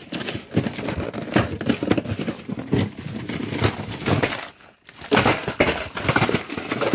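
Frozen-meal cardboard boxes and frozen packages being shuffled and knocked about in a freezer drawer: a busy run of scraping, rustling and clunks, with a brief pause nearly five seconds in.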